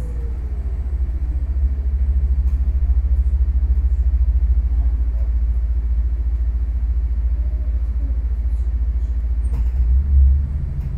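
Cabin rumble of a Mercedes-Benz eCitaro battery-electric city bus on the move, a steady low drone from tyres and road. A faint falling whine comes over the first two seconds, and there is a loud low thump about ten seconds in.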